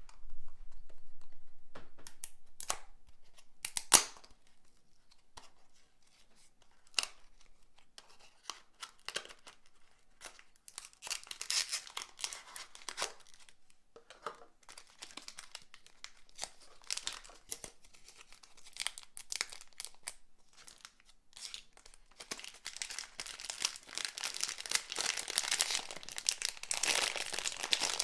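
Be@rbrick blind-box packaging being torn open and its wrapper crinkled. A few sharp clicks come first, the loudest about four seconds in, then scattered tearing and crinkling that grows denser and louder toward the end.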